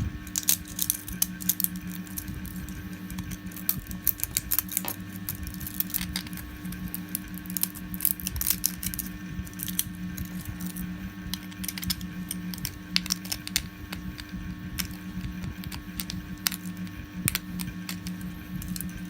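Irregular sharp clicks and small snaps of small hand tools picking and breaking plastic support material off a 3D-printed model, over a steady low hum.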